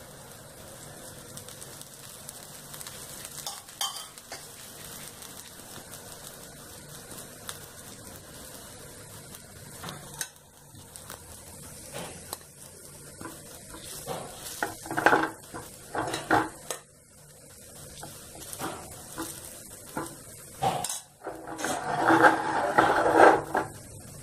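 Dosa sizzling on a hot tawa, with a steel spoon scraping and clinking against a steel bowl while paneer filling is scooped out. The scraping is loudest near the end, as the filling is spooned onto the dosa.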